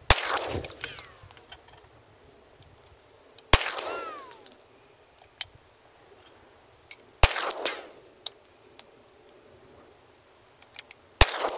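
Four pistol shots from a Glock 20 SF in 10mm Auto, spaced about three and a half to four seconds apart. Each report dies away over about a second, and faint clicks come between the shots.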